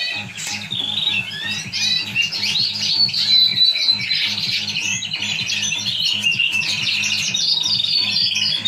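Mosaic yellow topaz canaries singing, several at once: a continuous, overlapping stream of rapid rolling trills and chirps.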